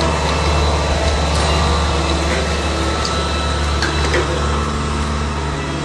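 Diesel engine of a CC4200 tandem road roller running steadily at a constant speed, a low even drone.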